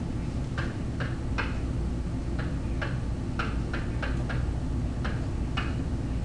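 Mimio stylus tapping against a whiteboard as letters of a formula are written: a string of short, irregularly spaced clicks over a steady low room hum.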